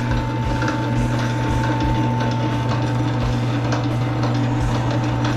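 Electric wire stripping machine running with a steady motor hum and a whine, its gears and rollers rattling.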